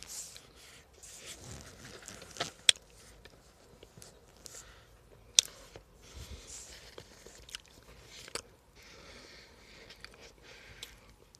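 Chewing a crunchy chunk of cornstarch, with sharp crunches now and then between softer grinding chews.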